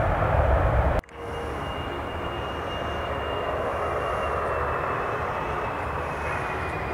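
Jet airliner engines: a steady rush carrying a thin high whine that slowly falls in pitch. In the first second a louder, deeper rumble cuts off abruptly.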